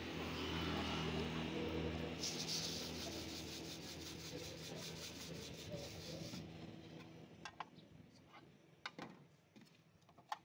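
A passing vehicle's engine hum fades out first. Then, for about four seconds, there is a fast rattling rasp of colored sugar sprinkles being shaken from a plastic cup over the cakes in the mold, cutting off suddenly. Near the end a metal pick clicks sharply on the metal cake mold a few times.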